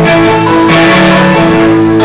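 Live music led by a strummed guitar, with held chords and steady strumming.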